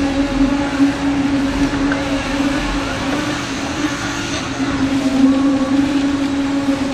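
Small engine running at a steady speed, an even hum.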